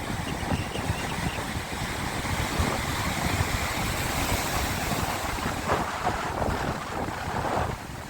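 Sea waves washing and splashing, with wind buffeting the microphone in a steady low rumble.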